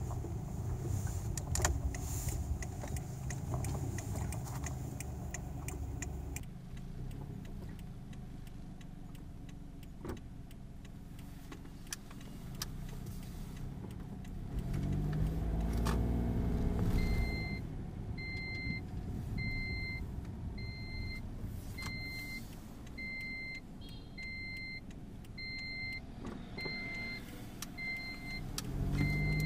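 Car engine running as the car creeps along, rising briefly in a rev a little past halfway. From just past halfway, an electronic warning beeper in the car sounds a steady beep a little more than once a second.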